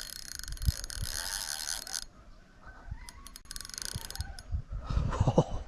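Fishing reel's drag ratcheting as a hooked salmon pulls line off. It comes in two runs: a long one of about two seconds, then a shorter one about three and a half seconds in.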